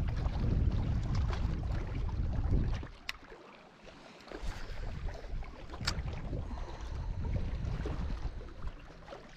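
Wind buffeting the microphone as a low rumble, which drops away for about a second and a half around three seconds in. Two sharp clicks sound, one about three seconds in and one near six seconds.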